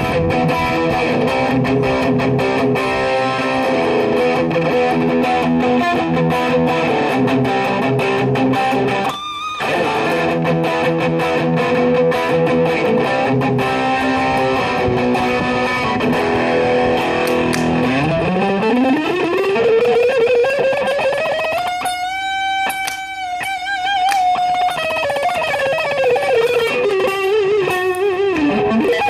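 Fender YJM Stratocaster electric guitar played through a DOD YJM 308 overdrive preamp into a Marshall DSL40C valve amp. It plays quick lead runs with a brief pause about a third of the way in, then a long note that slides up in pitch, is held with a wavering vibrato, and slides slowly back down near the end.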